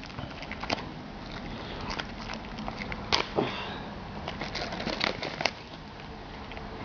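A sealed card box and its plastic wrapping being pried and torn open by hand, with irregular crinkling clicks and crackles. Louder snaps come about three seconds in and again around five seconds in.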